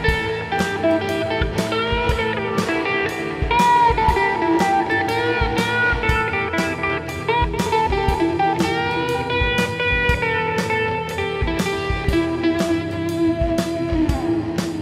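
Blues music: electric guitar playing held, bending notes over a steady drum beat of about two hits a second.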